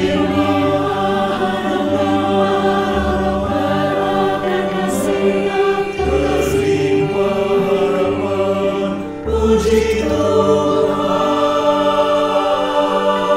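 Mixed church choir of men and women singing in harmony, with piano accompaniment; the chords change every second or two, and there is a short break between phrases about nine seconds in.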